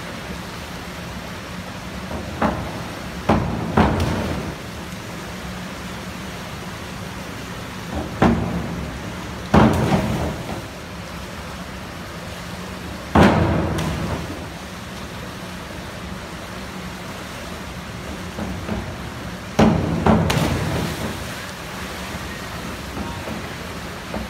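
Indoor pool hall ambience: a steady low hum with about eight scattered thuds and bangs, each ringing on in the hall's echo, the kind made by springboards and divers on a pool deck.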